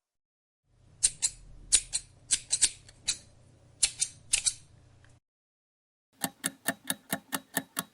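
Scissors snipping: a run of about a dozen sharp, irregular cuts. From about six seconds in there is an even, quick ticking, about five ticks a second.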